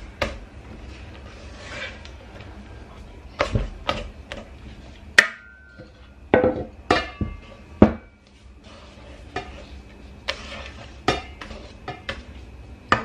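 A wire whisk stirring thick cake batter in a stainless-steel bowl, with scraping and repeated clinks and knocks of metal on metal. About five seconds in comes the loudest hit, a sharp metal knock with a short ring.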